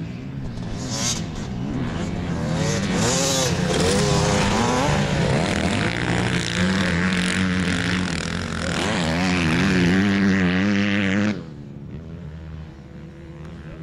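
Motocross bike engines racing past close by, revving up and down through the gears as the riders work the corners. The sound drops suddenly to a fainter, distant engine about eleven seconds in.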